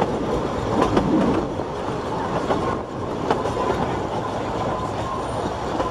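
Narrow-gauge railway carriage running along the line: a steady rumble of wheels on the track with several sharp clicks.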